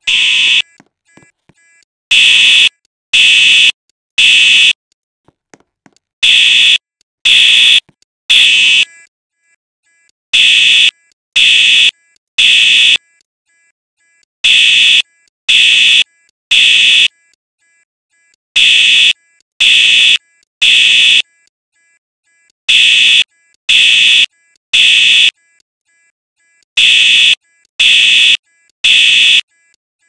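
Fire alarm sounding loud, high-pitched beeps in the temporal-three evacuation pattern: three beeps of about half a second, then a pause of about a second and a half, repeating. After a short lull at the start, seven such groups of three sound.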